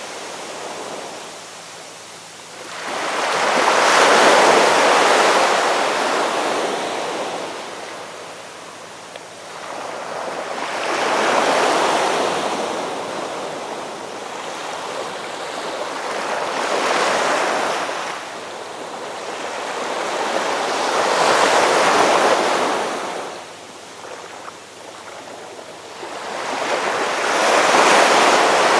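Ocean waves breaking and washing up the shore, one surge swelling and falling away every five or six seconds.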